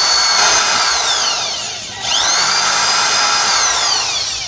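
Corded electric drill boring a hole through a wooden board, its motor whining. The whine winds down from about half a second in, spins back up sharply at about two seconds, and winds down again near the end.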